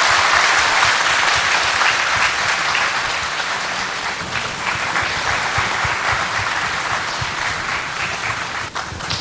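An audience applauding: dense, steady clapping that eases slightly after the first few seconds.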